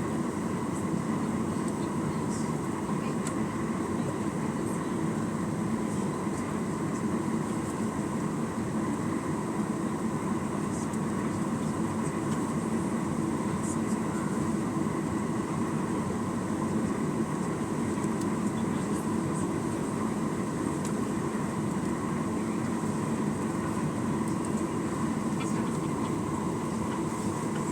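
Steady cabin roar of a Boeing 737-900ER, its CFM56-7BE turbofans and the airflow heard from inside near the back of the plane, holding level with a faint whine on top.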